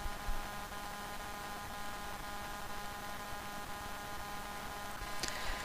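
Steady electrical hum with a faint hiss: the recording's background noise between narration, with several steady tones.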